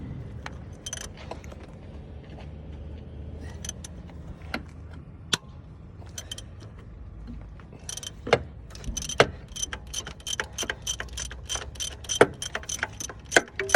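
Ratchet wrench with a 14 mm socket turning a bolt: a few scattered clicks at first, then from about halfway a fast run of ringing metallic clicks as the bolt is loosened.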